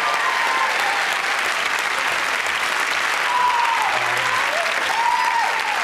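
Studio audience applauding steadily, with a few faint voices over it.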